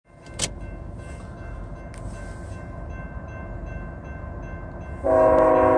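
A CSX freight locomotive's air horn sounds about five seconds in: a loud, several-note chord that starts abruptly. Before it come a steady low rumble and the steady dinging of a railroad grade-crossing bell.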